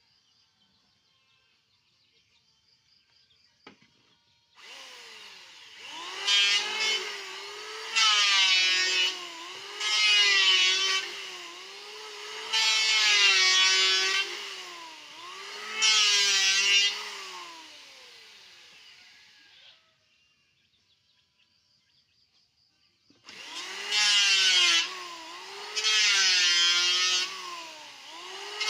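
Electric wood planer running and shaving wood. It starts about four seconds in and makes five loud cutting passes about two seconds apart, its motor pitch dipping as each pass bites into the wood. It stops, then starts again near the end for a few more passes.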